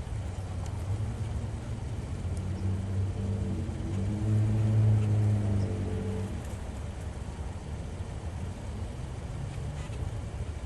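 A low engine hum over a steady rumble, swelling to its loudest about halfway through and then fading, like a motor passing by.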